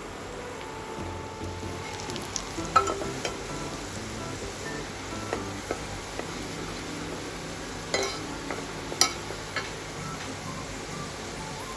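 Chicken frying in a pan with a steady sizzle, stirred with a utensil that knocks sharply against the pan a few times, loudest about three seconds in and again around eight and nine seconds in.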